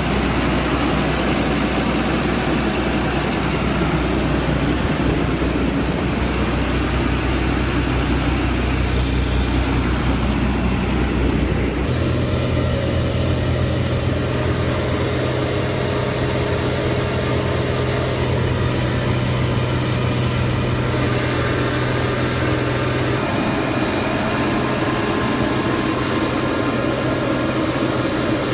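Silage bagging machine running steadily under load, its engine droning as chopped corn silage is fed through it; the drone changes pitch about halfway through.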